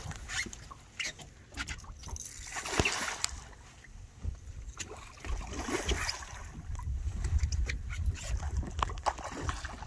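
Water splashing as a hooked redfish thrashes at the surface beside a boat, over a steady low rumble, with scattered sharp clicks.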